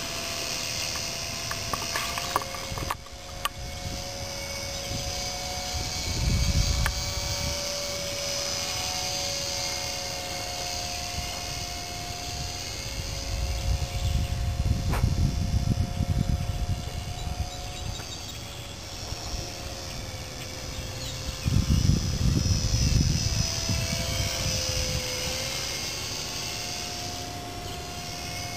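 Electric radio-controlled Carl Goldberg Husky 400 park flyer in flight: a steady motor-and-propeller whine whose pitch drifts slightly up and down as the plane moves. Three spells of low rumble come and go.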